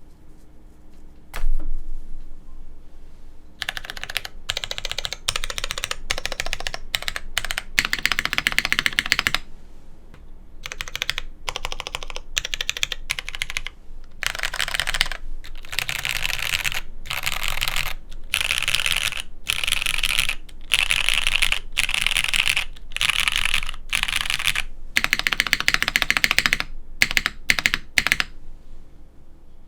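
Mechanical keyboard with lubed Cherry MX2A Brown tactile switches on a polycarbonate plate and hotswap PCB, typed on in quick runs of keystrokes separated by short pauses. A single louder keystroke stands alone about a second and a half in, and the typing stops near the end.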